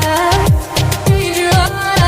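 Music with a steady beat of deep kick drums about twice a second under a wavering melody line, without singing.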